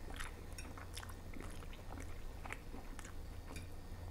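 A person chewing a mouthful of noodles close to the microphone, with wet mouth clicks and smacks scattered through, over a low steady hum.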